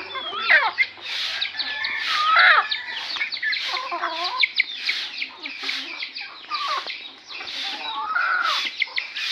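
A flock of hens clucking with short rising and falling calls while feeding. A regular sharp tapping comes through about every three-quarters of a second.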